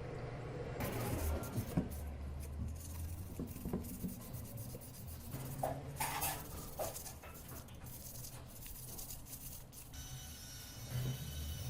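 Irregular hand-worked rubbing and scraping strokes, with a few light knocks, as parts are worked by hand during restoration.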